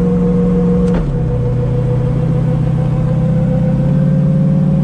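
Turbocharged car engine heard from inside the cabin, cruising at part throttle under manifold vacuum, not yet in boost. A sharp click about a second in, after which the engine note steps down in pitch; it rises slightly again near the end.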